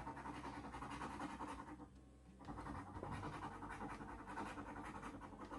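Faint scratching as the coating is rubbed off a scratch-off lottery ticket, pausing briefly about two seconds in.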